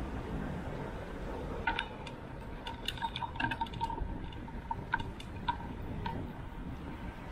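Wind and road rumble on a bicycle-mounted action camera during a ride, with a run of short, irregular ringing ticks from about two to six seconds in.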